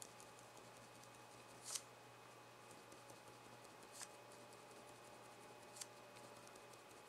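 Faint scratches of a felt-tip marker on paper: three short strokes about two seconds apart, the first the loudest, over near-silent room hum.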